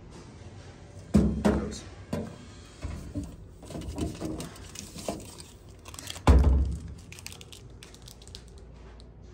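Clunks and knocks of a vending machine's push-flap delivery door and pickup bin as a candy bar is taken out, with a louder thump about six seconds in.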